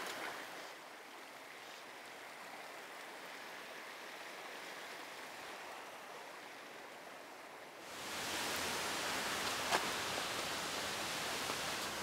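Steady rush of mountain stream water running over rocks below a waterfall. It is fairly quiet at first, then louder and fuller from about eight seconds in, with one faint tap near ten seconds.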